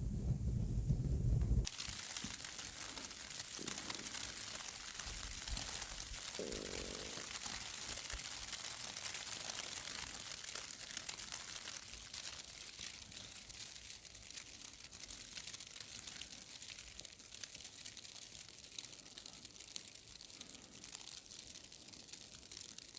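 Dense, steady crackling made of many tiny clicks, starting abruptly a couple of seconds in and growing fainter about halfway through.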